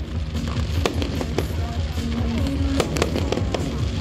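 Fireworks bursting and crackling in quick, irregular bangs, over music with a pulsing bass.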